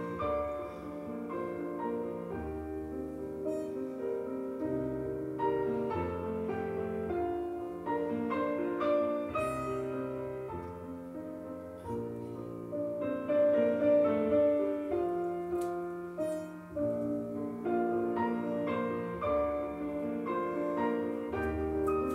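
Piano music with long held chords, the accompaniment for the révérence, the closing bows of a ballet class.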